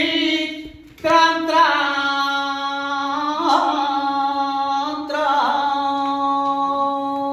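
Male flamenco cantaor singing a martinete unaccompanied, with no guitar. He sings long held notes decorated with wavering melismatic turns, breaking briefly for breath about a second in.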